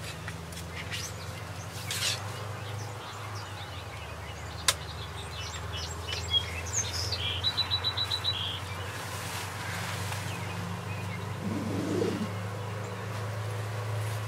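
Small birds chirping, with a quick even trill of about eight notes near the middle, over a steady low hum. A single sharp click about a third of the way in.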